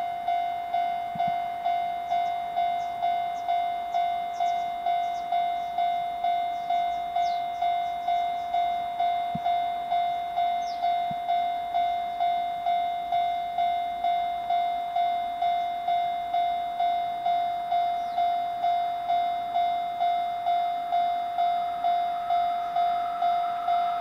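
Japanese level-crossing warning bell ringing steadily, one electronic tone struck about one and a half times a second, with faint bird chirps. Near the end the noise of the approaching electric freight train rises beneath it.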